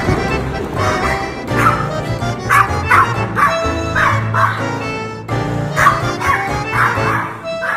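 A Pomeranian yipping in a string of short, high barks, over background music.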